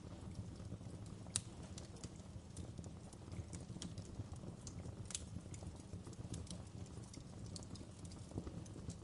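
Wood fire crackling: a steady low rumble of burning with irregular sharp pops and snaps, the loudest about a second and a half in.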